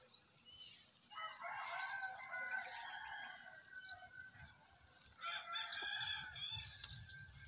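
A rooster crowing twice: a long crow starting about a second in, then a shorter one about five seconds in. Small birds chirp faintly in the background.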